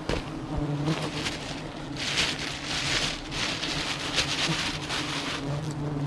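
Honeybees buzzing around a comb being harvested, a steady low hum, with a burst of rustling from about two to four seconds in.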